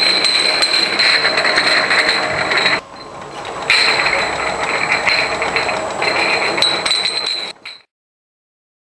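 Bottle conveyor with a single spacer wheel running: empty glass bottles rattle and clink against each other and the guides with a steady clatter of small clicks over a steady high whine. It dips for about a second a few seconds in, and cuts off near the end.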